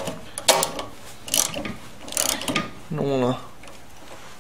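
Socket ratchet wrench clicking in three short bursts as it runs down the 10 mm bolts of a carburettor intake adapter. A brief vocal sound about three seconds in.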